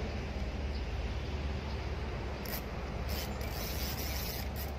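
Spinning reel being wound: a dry whirring from its gears in short spells, starting about halfway through, over a steady low rumble.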